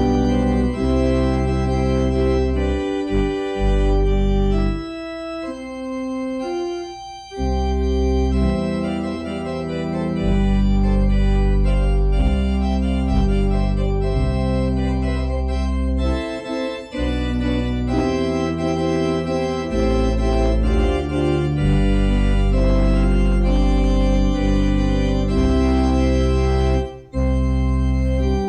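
Organ music: sustained full chords over deep bass notes, the harmony changing every second or two, with the bass dropping out briefly about a quarter of the way in.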